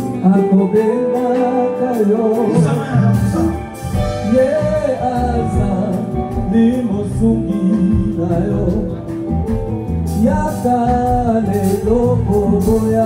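Music with singing: a sung melody over steady instrumental accompaniment.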